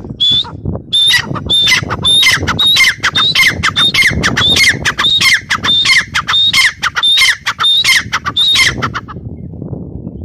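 Grey francolin calling: a long run of loud, shrill repeated notes, about two to three a second, that stops about nine seconds in.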